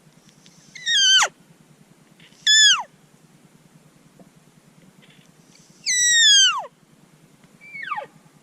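Four short, whining mew calls of cow elk, each falling steeply in pitch; the third is the longest and the last is fainter.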